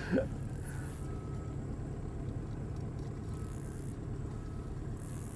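Boat motor idling: a steady low rumble.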